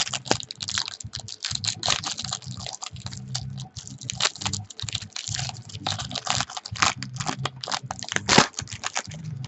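Quick, irregular clicking and rustling of hands opening a trading-card box topper pack and handling the card inside.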